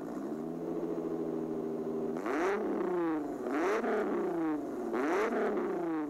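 Car engine idling steadily, then revved three times, the pitch rising and falling with each blip of the throttle.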